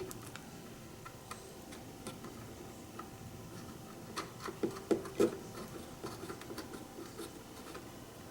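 Scattered small clicks and taps of hands working on the effects unit's hardware, with a few louder knocks about four to five seconds in.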